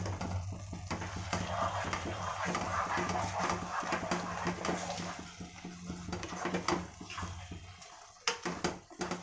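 A spatula stirring and scraping soft, wet vermicelli upma in a pot, with many small scrapes and clicks. Near the end come a few sharper knocks of the spatula against the pot. A low steady hum runs underneath and stops near the end.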